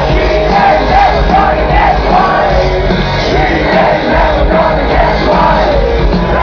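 Rock band playing live at full volume, a singer's voice riding over guitars and drums, with a crowd singing and yelling along. Heard from the audience, a distorted, boomy phone-camera recording.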